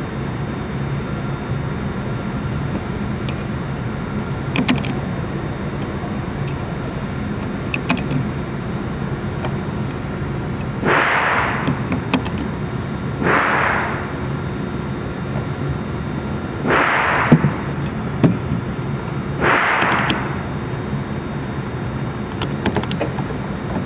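Four .45 ACP pistol shots from a CZ 97B in the second half, spaced about two and a half to three and a half seconds apart. Each is a short, blunted bang over a steady hum and hiss, with a few faint sharp clicks earlier on.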